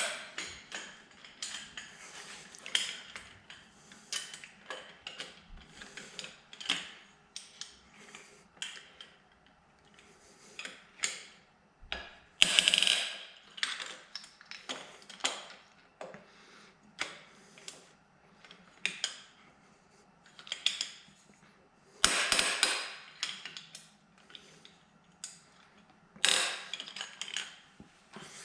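Hand tools working on a Harley-Davidson Sportster Evolution engine: irregular metallic clicks and clinks of wrench and socket on the bolts, with three louder ringing metal clanks, about halfway, about three quarters of the way, and near the end.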